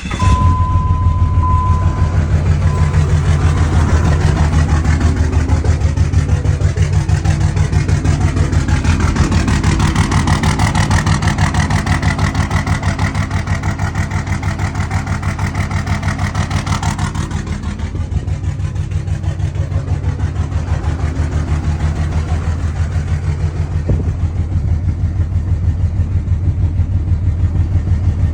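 Cummins 5.9-litre inline-six turbo diesel in a 2003 Ram 2500 idling just after start-up, with a fast, even low pulsing; the owner is chasing a rough idle and throttle problem with no check-engine light and no smoke. A short steady tone sounds in the first couple of seconds, and a higher hiss rises over the engine from about nine seconds in until it drops away around seventeen seconds.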